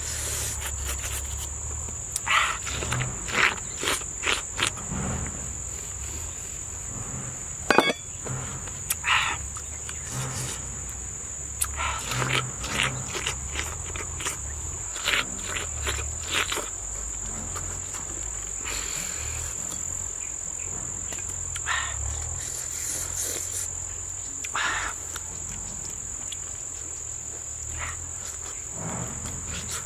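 A steady, high-pitched insect drone, typical of crickets, runs throughout, with irregular short wet crunches and slurps of a man biting and chewing fresh pineapple close to the microphone. One sharp click stands out about eight seconds in.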